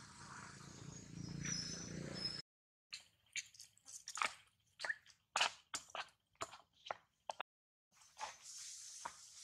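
Irregular sharp clicks and taps, a few a second, with the sound cutting out to silence twice.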